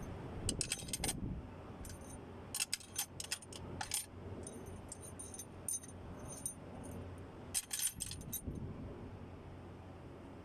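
Small metal engine parts and tools clinking and jingling against each other in short clusters: about half a second in, again between roughly two and a half and four seconds, and around eight seconds, over a steady low background hum.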